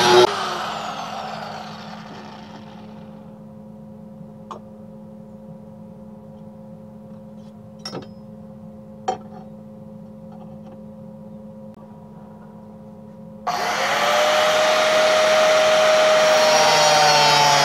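An angle grinder cutting the steel of an old circular saw blade is switched off and whines down as the disc coasts to a stop. A few sharp clicks follow as the blade is handled and reclamped. About three-quarters of the way through, the grinder is switched on again, and its whine rises quickly to speed and then runs steadily.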